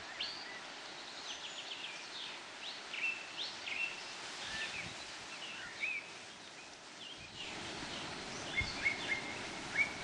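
Small songbirds chirping and singing, many short high chirps and quick whistled notes over a faint steady outdoor hiss.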